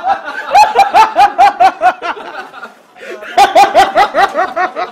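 Loud, rapid laughter, a rhythmic 'ha-ha-ha' of about six beats a second, in two bouts that break off briefly about halfway through.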